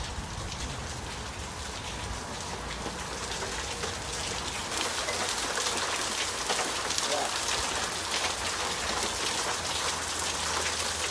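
Steady patter of falling water, like heavy rain, with many small drip splashes throughout.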